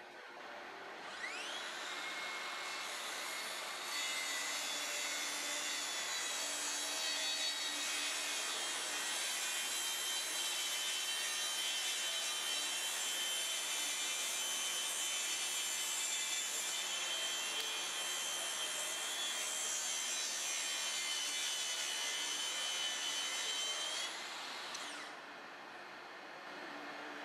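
Makita cordless track saw cutting through dense red oak: the motor spins up with a rising whine about a second in, cuts steadily for about twenty seconds, then winds down near the end.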